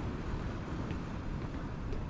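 Steady low rumble of city street traffic, with faint footsteps ticking about once a second.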